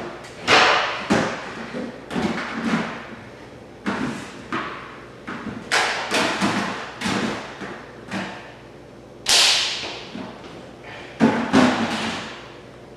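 A small wastebasket being handled and rummaged through: an irregular series of about a dozen thuds and knocks, each trailing off in a short echo, with the loudest near the end.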